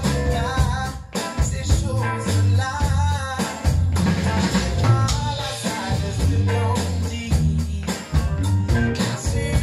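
Electric bass guitar and drum kit playing an upbeat soul groove together, with a sung melody line over them.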